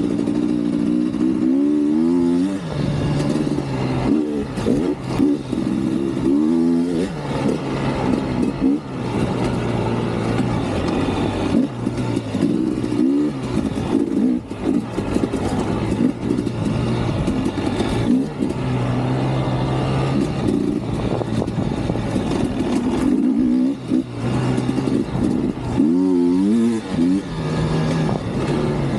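Dirt bike engine revving up and easing off again and again as it is ridden along a dirt trail, with steady wind and trail noise underneath.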